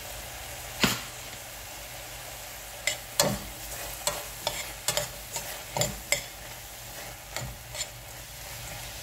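A spoon stirring spinach, green peas and spices in a stainless steel pot, knocking and scraping against the pot about ten times at irregular intervals, over a steady sizzle of frying.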